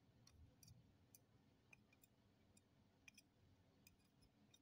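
Near silence with faint, scattered light clicks and taps as a kitten paws and grabs at a dangled plastic phone charger.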